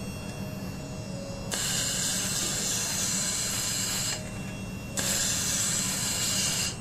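Handheld fiber laser welder firing on a stainless steel seam in two bursts, each a loud steady hiss, the first about two and a half seconds long and the second under two, starting and stopping abruptly with the trigger. A quieter steady machine hum runs underneath.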